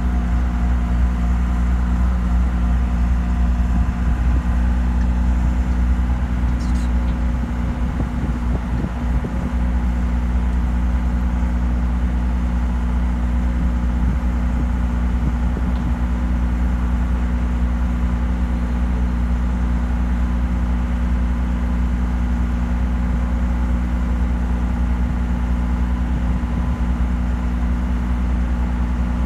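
Heavy-equipment diesel engine idling steadily with a low, even hum.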